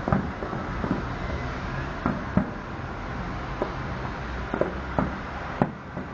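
Fireworks shells bursting: sharp bangs at irregular intervals, about ten in six seconds, over a steady background rumble.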